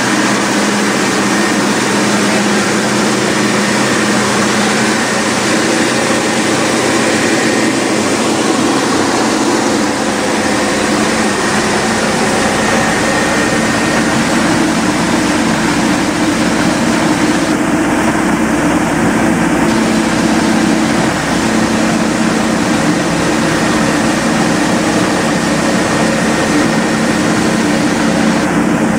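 Optical bean color sorter and the processing machinery around it running: a loud, steady hum with hiss. A deeper rumble comes in about nine seconds in.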